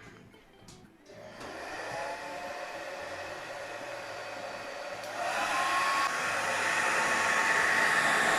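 Hair dryer switched on about a second in, its motor spinning up into a steady blowing rush. It steps louder about five seconds in, with a steady whine over the airflow.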